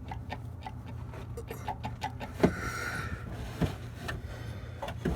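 Camera handling noise: scattered light clicks and knocks, the sharpest about two and a half seconds in, over a steady low hum.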